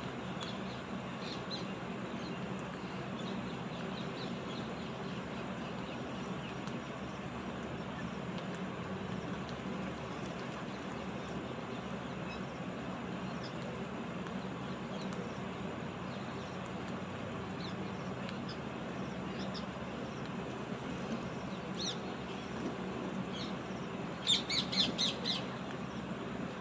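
Birds giving short, high chirps every few seconds over a steady background hiss, then a quick run of several loud calls near the end.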